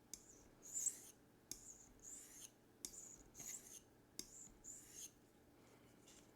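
D2 steel knife blade drawn across a white sharpening stone in short, faint, high-pitched scraping strokes, a little more than one a second, during the initial sharpening at 15 degrees per side.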